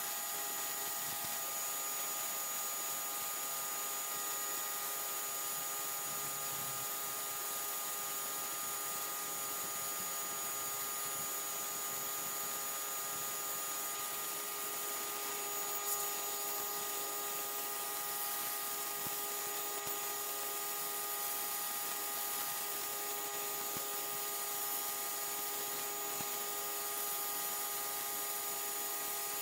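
Simoniz 1800 PSI electric pressure washer running steadily, its motor and pump whining under the hiss of the high-pressure water jet blasting dirt off concrete. A single sharp click about halfway through.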